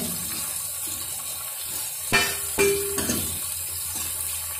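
Cauliflower florets and green chillies frying in hot oil in a steel kadhai, a steady sizzle, with a steel ladle scraping and knocking against the pan a few times around the middle.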